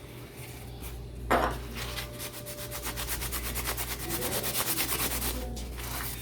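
Cotton soaked in isopropyl alcohol rubbed in quick back-and-forth strokes over a graphics card's parts to clean them, after a single knock about a second in.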